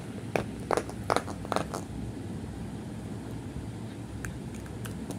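Indian Spitz barking: four short, sharp barks in quick succession within the first two seconds, over a steady low background rumble.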